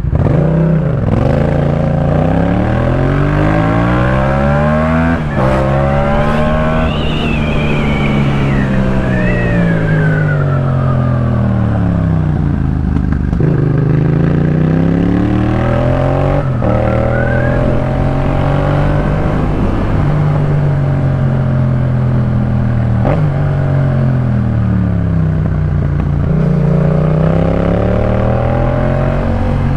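Yamaha MT-07's parallel-twin engine through a Jeskap K4 full aftermarket exhaust, revving up through the gears with a sharp drop in pitch at each upshift, then falling away as the bike slows and pulling up again, several times over.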